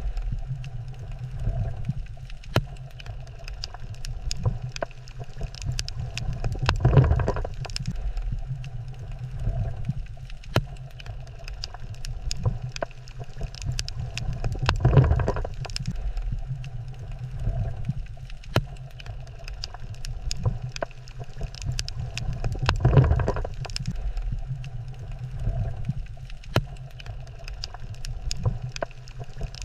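Underwater reef ambience: a low rumble of moving water that swells about every eight seconds, with many scattered sharp clicks.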